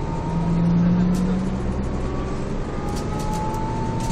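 Mercedes-Benz OM447hA straight-six diesel of a Jelcz M122MB city bus running with a steady low drone that swells for about a second early on. Later a thin whine, slowly rising in pitch, comes up from the driveline with its ZF 4HP590 automatic gearbox.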